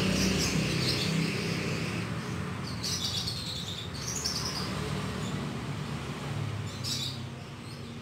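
Canaries giving short high chirps in a few separate bursts, over a low steady hum.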